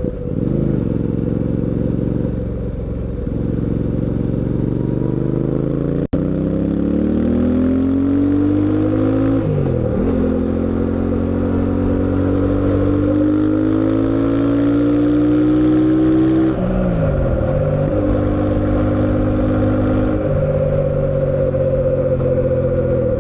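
Fantic Caballero 700 Scrambler's parallel-twin engine under way, pulling up through the gears: the engine note climbs steadily, then drops sharply at upshifts about ten and sixteen seconds in, before running on at a fairly steady pitch. A sharp click about six seconds in.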